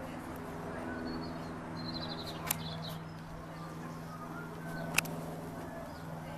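Light propeller aircraft's piston engine running with a steady drone. A bird chirps briefly about two seconds in, and there are two sharp clicks a couple of seconds apart.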